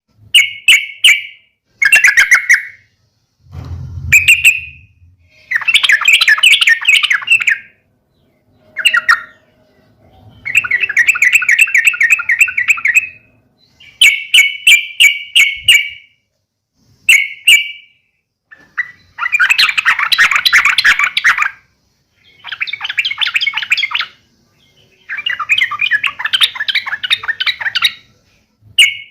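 Yellow-vented bulbul (trucukan) giving loud, harsh chattering fighting calls, in bursts of one to three seconds with short pauses between them.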